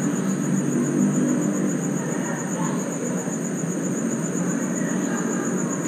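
Night insects trilling in a steady, high, finely pulsing chorus over a louder, even low rumble.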